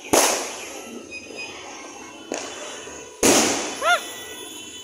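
Aerial firework shells bursting: a loud bang right at the start, a fainter one a couple of seconds in, and another loud bang about three seconds in, each echoing away as it fades. A brief rising-and-falling pitched sound, like a short whistle or shout, follows the last bang.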